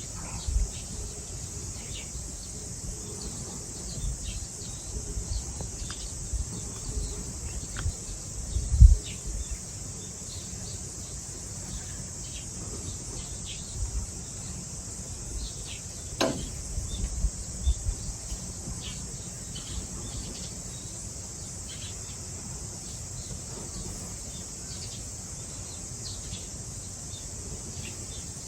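Outdoor summer ambience: insects keep up a steady high-pitched drone while short bird chirps come and go. Low rumbling bumps sound now and then, the loudest about nine seconds in.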